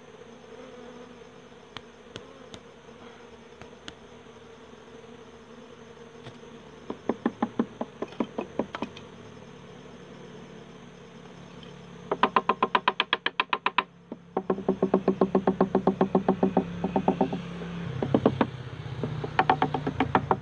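Wasps buzzing steadily around their comb in a wooden hive box. From about seven seconds in, bursts of a much louder rapid pulsing sound, about seven or eight pulses a second, come and go over the buzzing.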